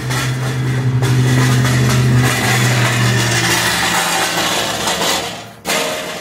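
Chair dragged across a patio, scraping with a low, juddering, buzzing drone that sounds like diarrhea. It stops abruptly near the end, followed by a short scrape.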